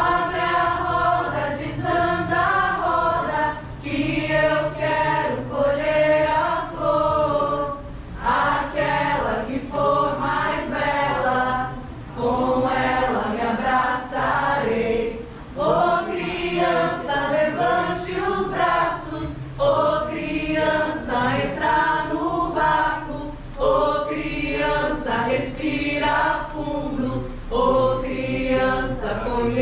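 A group of voices singing together in phrases, with short breaks between lines.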